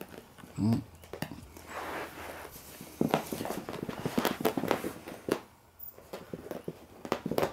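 Beagle puppies scampering about on carpet: soft footfalls with a scatter of light clicks and knocks, busiest from about three to five seconds in.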